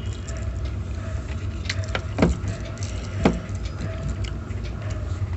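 A steel serving spoon moving through chicken curry in a steel bowl, with two light clinks of spoon on bowl about a second apart, over a steady low hum.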